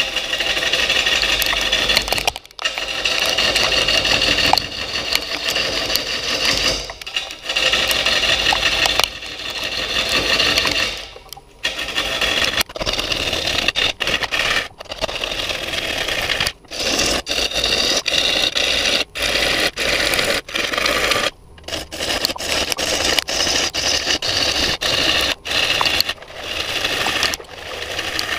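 A gouge cutting into a spinning silver maple bowl blank on a wood lathe, a continuous loud scraping, shearing sound as shavings are thrown off. It runs in long passes with brief breaks as the tool lifts off, the breaks coming more often in the second half.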